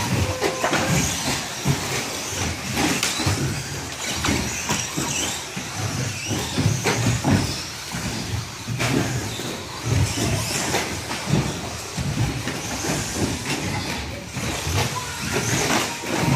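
2WD short-course RC trucks racing on an indoor carpet track: motors running and tyres on the carpet, with frequent knocks and thumps as the trucks land jumps and strike the track.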